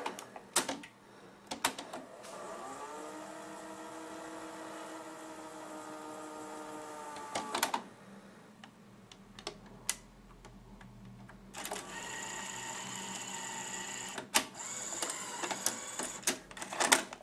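Sony C40 Betamax player's motor and tape mechanism at work: button clicks, then a motor whir that rises in pitch and runs steadily for about five seconds before stopping with a clunk. After a short lull a second stretch of whirring and clicking follows as the cassette is unloaded.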